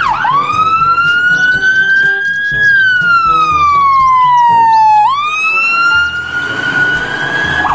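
Emergency-vehicle siren in a slow wail: the pitch climbs for about two and a half seconds, sinks slowly until about five seconds in, then jumps back up and climbs again.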